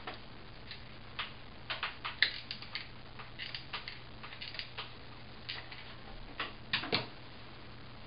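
Irregular light clicks and taps of a flat iron being clamped and worked through hair, bunched about two seconds in and again near the end, over a faint steady hum.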